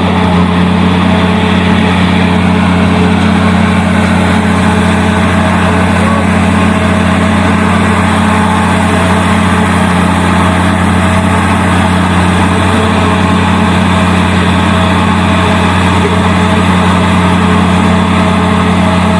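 Large diesel engine running at a steady speed: a loud, unchanging deep hum with no rise or fall in pitch.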